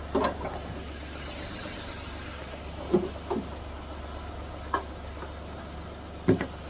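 Ford EcoSport 1.5 Dragon three-cylinder petrol engine idling with a steady low hum. A few short knocks stand out over it, the loudest about three seconds in and near the end.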